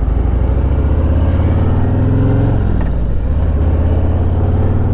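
2022 Harley-Davidson Road Glide Limited's V-twin engine pulling under acceleration: the pitch rises, drops at a gear change about two and a half seconds in, then rises again.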